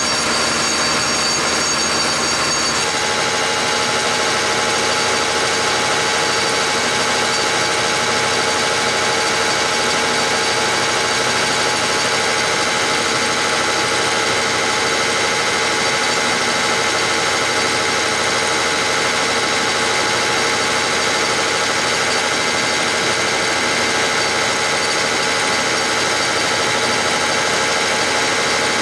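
Injection pump test stand running a Bosch VE rotary diesel injection pump with 7x.011 sac injectors spraying into the stand's measuring cylinders: a steady mechanical whirr with a hiss of fuel spray. The sound shifts about three seconds in as the lower tones drop away.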